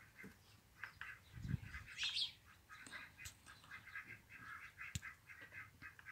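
Muscovy ducks calling faintly, many short calls in quick succession, with a low thump about one and a half seconds in and a sharp click near the end.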